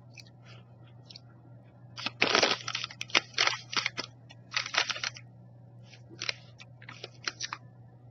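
A pack of Belgian Boys mini cookies being torn open: irregular bursts of crinkling and tearing packaging, starting about two seconds in.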